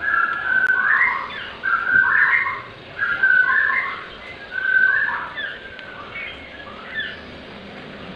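White-rumped shama chicks calling: a run of short, loud, whistly calls about once a second, growing fainter and sparser after about five seconds.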